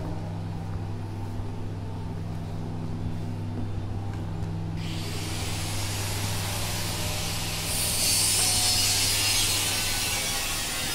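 Interior fit-out work noise: a steady low hum, joined about five seconds in by a rough hissing work sound that grows louder around eight seconds in.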